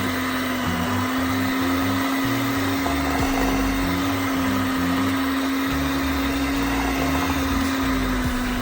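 Electric mixer motor running steadily at one speed, beating cake batter.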